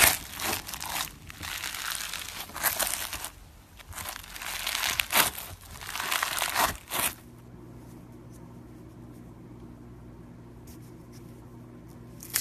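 Hands kneading and squeezing pink textured slime, a dense run of quick crackles and crinkles. About seven seconds in it cuts off abruptly, leaving a faint steady hum with a few light clicks.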